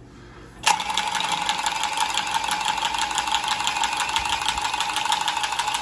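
Cordless copper tubing cutter running as it spins around a copper pipe and cuts through it. It starts suddenly about a second in with a steady high whine.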